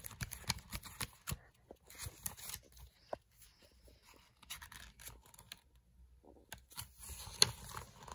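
Pages of a hardcover comic book being handled and turned by hand: faint paper rustling with scattered small taps, and a sharper click about seven seconds in.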